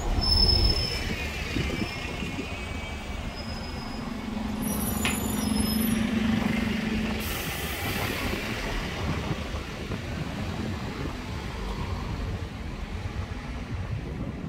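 Street traffic passing close: a double-decker bus goes by with a low rumble at the start and brief high brake squeals. A car passes around the middle.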